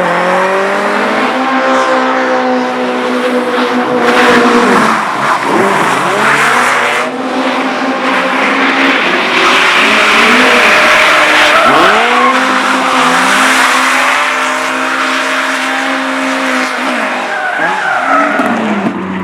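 A car engine revved hard in several long pulls, each rising quickly and holding at high revs before dropping off, with tyres squealing and skidding.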